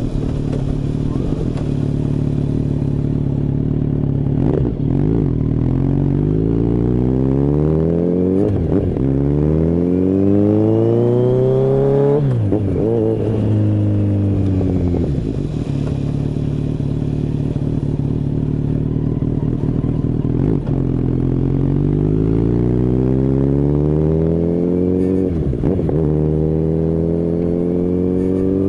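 Kawasaki Z900RS inline-four engine breathing through an aftermarket MAVERICK slip-on silencer, accelerating through the gears. The exhaust note rises in pitch, then drops back at each upshift, about five times.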